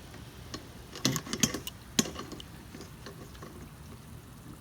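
Sharp metallic clicks and clinks of wrenches being fitted to the nut and bolt of a garage door opener rail pulley: a quick cluster about a second in, one sharp click at two seconds, then a few faint ticks.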